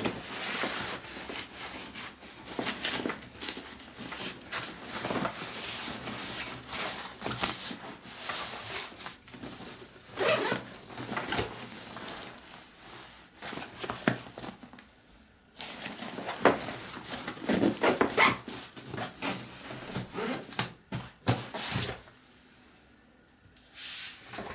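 Handling of a Vanguard Up-Rise 28 camera bag: fabric rustling and rubbing, with scattered clicks and knocks from its parts, which stops briefly twice.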